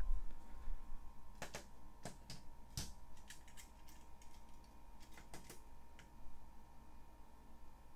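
Scattered light plastic clicks and taps as die-cast toy cars are handled and set into the starting gate of an orange plastic toy drag-race track, a few sharper clicks coming about one and a half to three seconds in.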